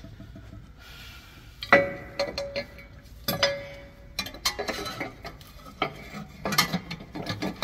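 Metal parts clinking and knocking as a metal cover plate is offered up and fitted under a pickup's transmission. There are two sharp ringing clinks, about two and three seconds in, then a run of smaller knocks and rattles.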